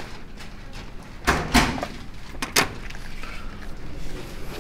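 Hotel room door being unlocked and opened: a clatter of the latch and handle a little over a second in, then a sharp click about a second later.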